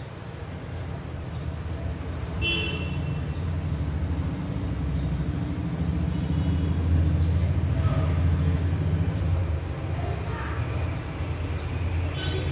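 Steady low rumbling background noise that grows somewhat louder towards the middle, with a faint short high tone about two and a half seconds in.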